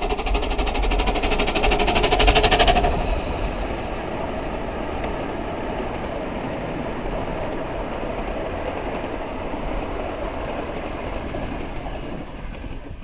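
A 15-inch gauge oil-fired miniature steam locomotive running past close by, with a loud, rapid, even beat for about the first three seconds. It then drops to a quieter, steady running sound that fades toward the end as the engine goes into the tunnel.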